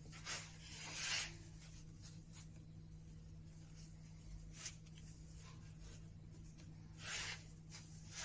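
Thin wooden panel boards pushed and slid by hand across a plywood board: a few short, faint scrapes, about a third of a second in, around a second in, and again around seven seconds in, over a steady low hum.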